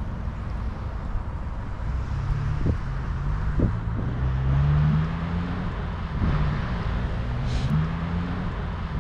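A motor vehicle's engine running, its pitch climbing to a peak about halfway through, dropping, then rising again near the end, with two light knocks before the first climb.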